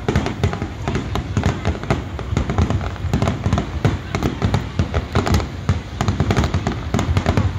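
Aerial fireworks shells bursting in quick succession: a dense, unbroken run of bangs, several a second.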